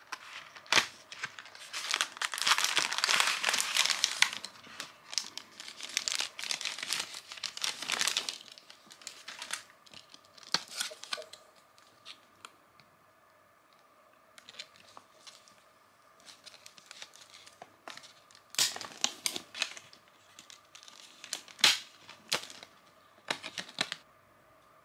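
Crinkling and tearing of plastic packaging as a box of sesame brittle is opened and its clear plastic tray handled, loudest and densest in the first few seconds, then scattered crackles and clicks with a few short bursts of crinkling near the end.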